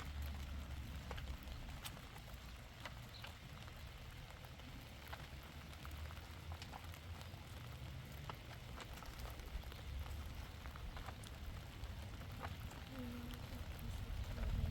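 Steady rain falling, with many individual drops ticking at scattered moments over a low rumble.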